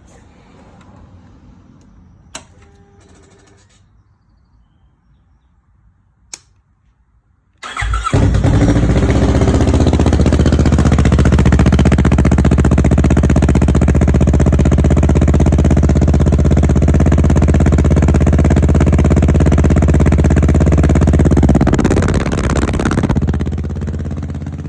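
Kawasaki Ninja 650 parallel-twin engine with a Two Brothers carbon full exhaust starting up for the first time about eight seconds in, after two faint clicks. It then runs loud and steady at a fast cold idle and eases to a lower level near the end.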